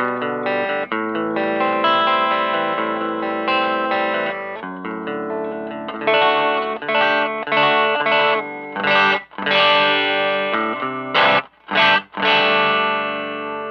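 Electric guitar played through a Hotone Nano Legacy Eagle's Heart mini amp head. Picked notes and chords come first, then chopped chord stabs that cut off sharply from about six seconds in, ending on a chord left to ring.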